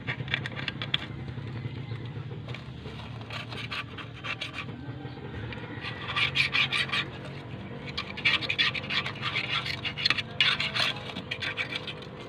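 Old gasket sealant being scratched and scraped off the metal flange of an automatic-transmission oil pan, in bursts of quick scratching strokes, loudest in the second half, over a steady low hum.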